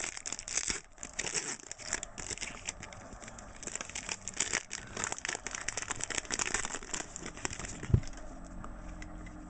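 Plastic wrapper of a pack of basketball trading cards being handled and opened, with a dense run of crinkling and crackling. A single knock about eight seconds in.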